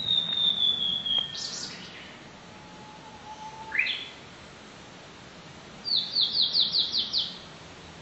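Blue-and-white flycatcher singing. A long, clear, high whistle ends in a short buzzy note. Mid-phrase comes a faint low whistle and a quick rising note, and near the end a rapid run of about seven falling notes.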